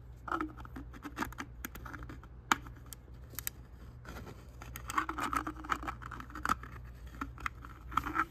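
Black 3D-printed PLA cap being twisted against the threads of a printed catch can, hard plastic scraping and clicking in irregular bursts as the threads fail to catch: the printed threads don't fit.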